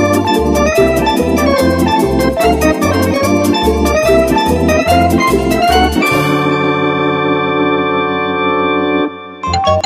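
Background music: a keyboard melody over a steady pulsing bass. About six seconds in it settles on a long held chord that fades, then starts up again just before the end.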